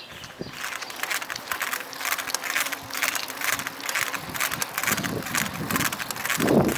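Bicycle drivetrain making a regular clicking noise, about three clicks a second, which the owner suspects comes from the rear derailleur. A louder noise comes in near the end.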